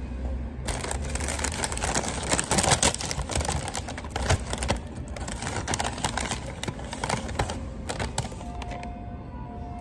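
Paper food packaging being handled and opened, a dense run of crinkling and crackling that starts just under a second in and stops near the end.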